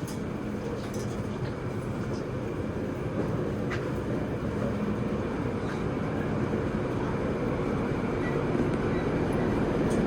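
Steady low rumble with a faint hum, growing slightly louder: background machinery and ventilation noise aboard a cruise ship's lower deck.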